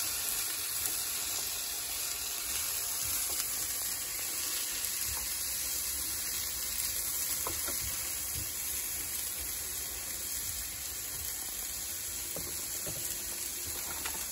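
Diced vegetables sizzling steadily as they fry in a Ridgemonkey pan, with a wooden spoon stirring them and scraping the pan now and then.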